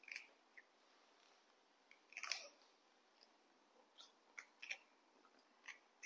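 Young macaques crunching and chewing crisp snack sticks: faint, scattered crisp crunches, the loudest about two seconds in and a quick run of them between four and five seconds.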